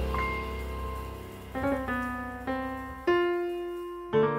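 Background piano music: slow notes and chords struck about once a second, each left to ring and fade.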